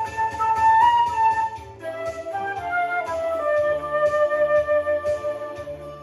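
Concert flute playing a melody over a backing track with bass and drums: a long held note first, then a falling run of notes that settles into a lower held note.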